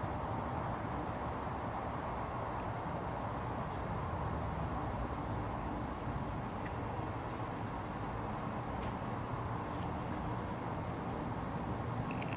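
A steady high-pitched trill running unbroken over constant low background noise, with one faint click about nine seconds in.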